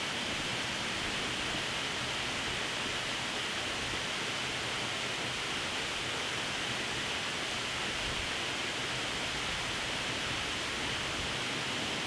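Waterfall rushing steadily: an even, unbroken hiss of falling and splashing water.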